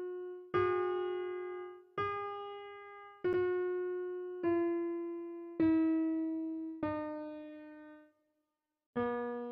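Background music: a slow keyboard melody of single piano-like notes, one struck about every second and a quarter and each left to fade away. A short pause comes near the end, then the notes resume.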